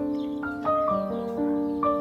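Background music: a light keyboard melody, with new notes coming in about every half second over held lower tones.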